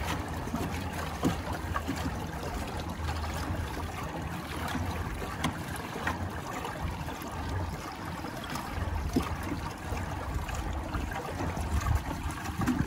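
Water trickling and lapping along the hull of a Galaxy Supernova pedal fishing kayak under way, over a steady low rumble, with small scattered knocks.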